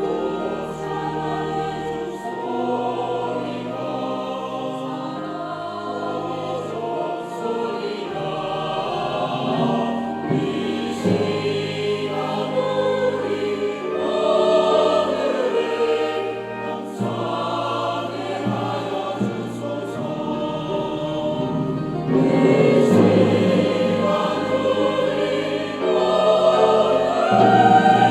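Church choir singing a hymn anthem in several voice parts, swelling louder over the last few seconds.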